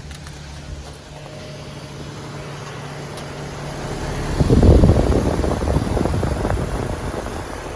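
Heat pump outdoor unit running in heat mode with a steady low hum. About four seconds in, a louder rushing noise swells and then fades over a few seconds, and this is the loudest sound.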